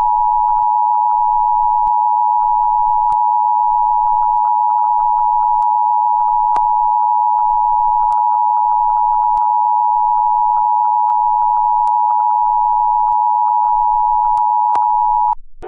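A loud, steady electronic alert tone at one unchanging pitch, held without a break after a 'please stand by' notice, with faint scattered clicks over it. It cuts off abruptly near the end.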